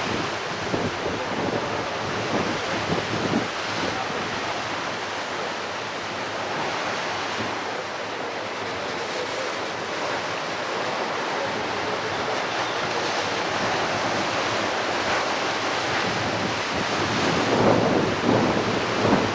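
Pacific ocean surf washing onto a beach, a steady rush with a louder swell near the end, and wind buffeting the microphone.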